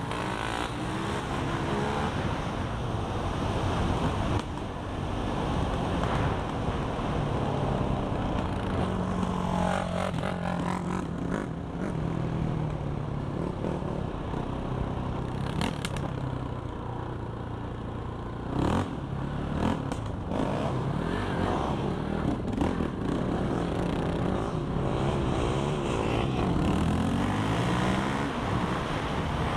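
Quad (ATV) engine running at speed, its note stepping and sliding up and down with throttle and gear changes, with wind rushing over the helmet-mounted microphone.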